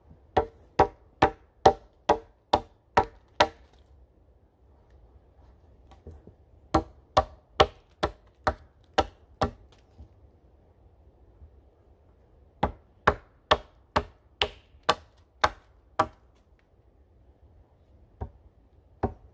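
Wetterlings hatchet chopping a point onto the end of a green pole laid across a log: three runs of sharp, evenly spaced blows at about two a second, with pauses between, then two single blows near the end.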